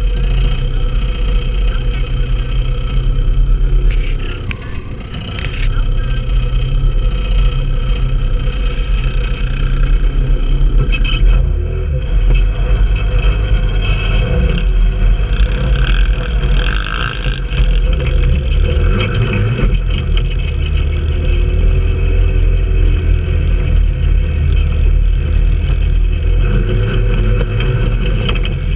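Trailmaster 150 go-kart engines, 150cc single-cylinder four-strokes, running and revving as the karts drive over dirt. The throttle backs off briefly about four seconds in.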